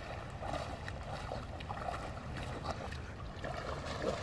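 Husky splashing and wading through shallow river water, tugging at a branch, with irregular sloshes over a steady low rumble of wind on the microphone.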